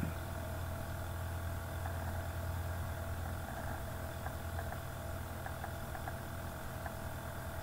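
A steady low hum with faint background noise and a few tiny ticks.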